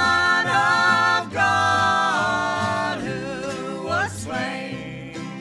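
Gospel singers holding long sung notes in a country-gospel song, with instrumental backing underneath.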